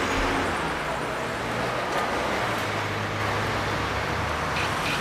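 Steady road traffic noise, an even wash of passing cars.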